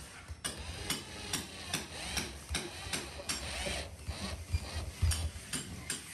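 Cordless drill driving screws through an aluminium shadow-line ceiling trim, heard as a run of sharp, evenly spaced clicks, about two or three a second.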